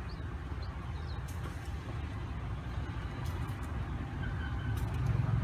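Diesel locomotive running light and rolling slowly in to couple onto its train. It makes a steady low engine rumble that grows louder near the end as it draws closer.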